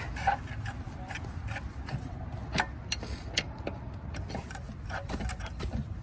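Irregular metallic clicks and taps of hand tools at the car's wheel, over a low steady rumble, with two louder clicks a little past the middle.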